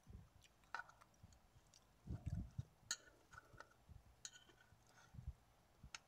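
Faint close-up chewing in a few soft spells, with several sharp light clicks of a metal fork against a plastic tray.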